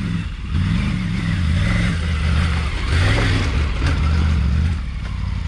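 Adventure motorcycle engine labouring in low gear up a rough, rocky track, its note rising and falling as the throttle is opened and closed.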